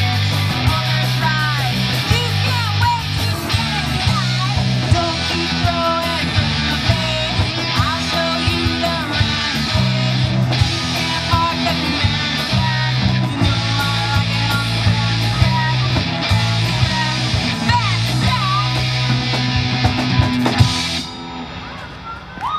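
Rock music with distorted electric guitar, bass and drums, with a lead guitar line bending in pitch over the top; the music drops away sharply about a second before the end.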